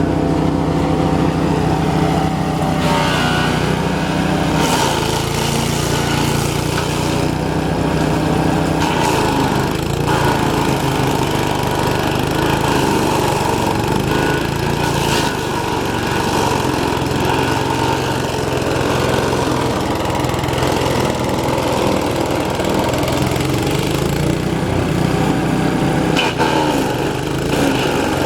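Petrol-engined garden shredder running under load, its engine note shifting a few times as branches are fed in, with brief cracks of wood being chipped.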